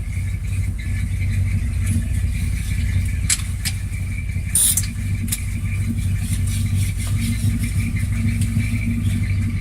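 Dodge pickup truck's engine idling steadily, with a faint steady high whine over the low engine note and a few sharp clicks or rattles near the middle.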